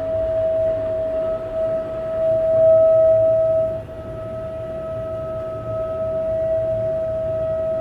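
Household water pipes or water heater giving off a loud, steady humming tone held at one pitch, with a fainter higher overtone joining about a second in and a swell in loudness around two to three seconds in.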